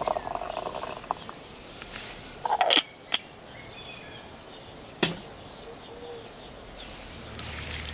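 Tea-making handling sounds at a samovar: a brief clatter about two and a half seconds in, then a single sharp clink near five seconds in as the porcelain teapot is set down on the brass samovar's top.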